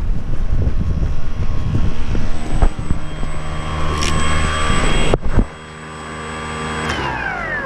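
Electric motor and propeller of a radio-controlled Flightline Spitfire model running with a steady whine, mixed with wind buffeting the microphone and a few knocks. Near the end the whine falls in pitch as the motor slows.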